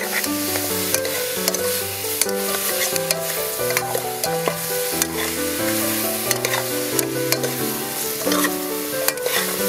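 Pieces of pig's leg sizzling in a stainless steel pot as a metal ladle stirs them, with scattered clinks of the ladle against the pot. Background music with a slow melody of held notes plays underneath.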